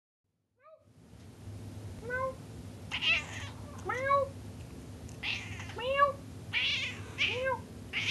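Black domestic cat giving a run of short meows, one every second or two, each rising then falling in pitch. Short breathy noises come between them.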